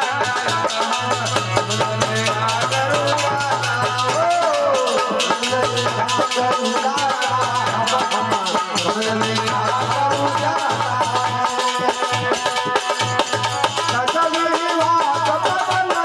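Bhajan music with held, sustained instrumental tones over a dense, steady rattling percussion.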